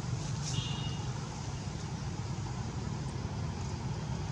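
Steady low rumble of outdoor background noise, like distant traffic or wind. A brief high chirp comes about half a second in.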